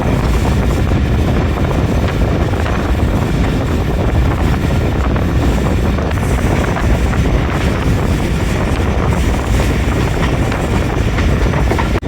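Steady rumble of a moving vehicle with wind buffeting the microphone.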